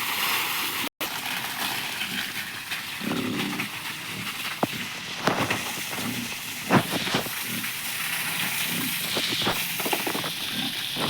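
Pigs grunting in a pen over a steady hiss, with scattered sharp knocks and clatter.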